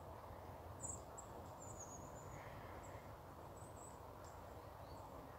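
Faint outdoor ambience: a steady low background rumble, with a few very high, thin bird calls, one at about a second in, a wavering run soon after, and another past the middle.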